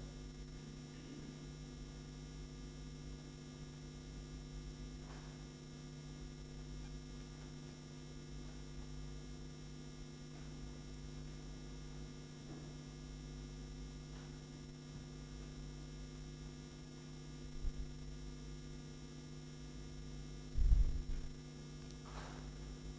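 Quiet room tone carrying a steady electrical mains hum, with two dull low thumps late on, the second louder.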